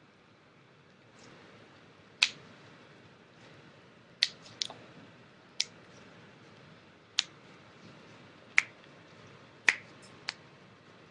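A series of about eight sharp joint cracks, single pops spaced irregularly one to two seconds apart, as joints are worked during a manual adjustment.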